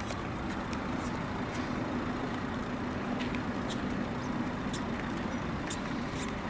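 Motorway traffic noise: a vehicle engine running with a steady hum, with a few scattered short, sharp clicks.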